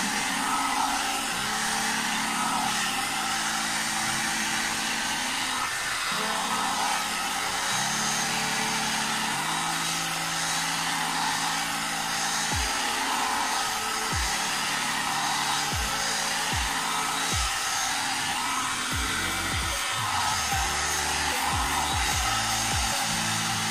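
A one-step hot air brush, a hair dryer and round brush in one, blowing a steady rush of air while hair is dried and straightened. Background music with held low notes plays underneath.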